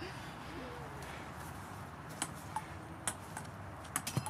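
Steady low background noise with a faint distant voice, and a handful of sharp, short clicks in the second half.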